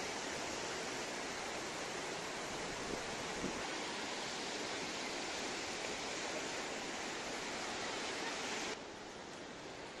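Narmada River water rushing over rocks in rapids below Dhuandhar Falls: a steady rushing noise that suddenly becomes quieter and duller near the end.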